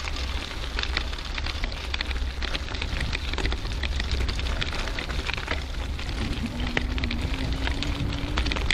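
Bicycle rolling over a rough dirt-and-gravel path: a steady crackle of tyres on grit, with many small clicks and rattles from the bike. A constant low wind rumble on the bike-mounted camera's microphone runs under it.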